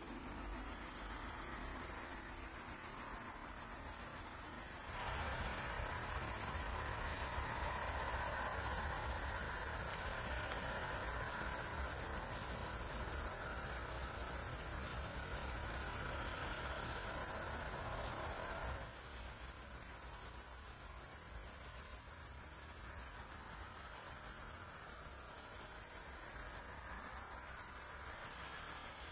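A cricket-like insect singing: a continuous, very high-pitched trill made of fast, evenly spaced pulses, slightly fainter through the middle stretch.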